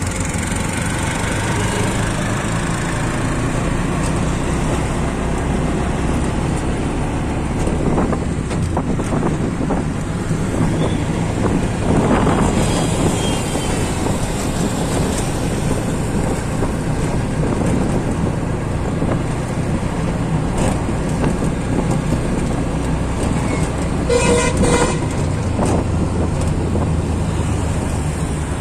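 Auto-rickshaw engine and road noise, heard from inside the open cabin while riding through traffic, with a vehicle horn honking briefly about three-quarters of the way through.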